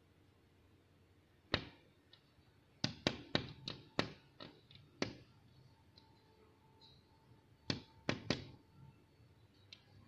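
A red-vented bulbul tapping its beak against window glass in sharp knocks: a single tap, then a quick run of about eight over two seconds, then a few more later on. The bird keeps striking at the pane, which the uploader puts down to it being confused by the shadow of a climbing grape vine.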